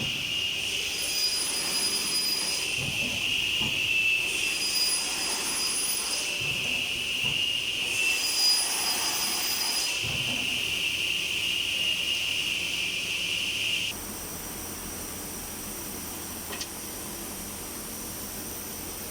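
CNC cut-off saw working through repeated cross-cuts in solid wood: a high blade whine rises and changes every couple of seconds, with low knocks between the cuts. About fourteen seconds in the cutting stops, leaving a quieter steady machine running noise.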